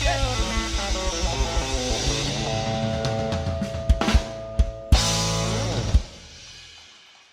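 Live country band of electric guitars, bass and drum kit playing the closing bars of a song over a steady kick-drum beat. It ends on a few hard drum-and-band hits about four to six seconds in, then the last chord rings out and fades.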